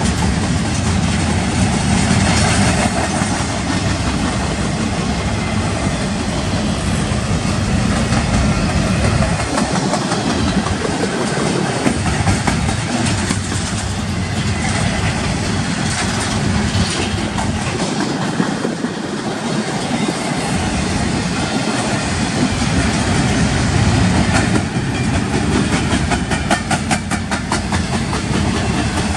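Double-stack intermodal well cars rolling past on steel wheels: a steady rumble and rush of wheels on rail, with a quick run of clicking near the end.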